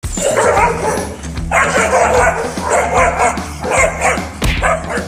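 Corgi barking and yapping aggressively in rapid runs about a second long, one after another.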